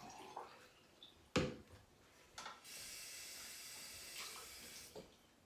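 Handling of a portable blender while it is being cleaned: a sharp knock about a second and a half in, a lighter click, then a steady hiss for about two seconds that stops before the end.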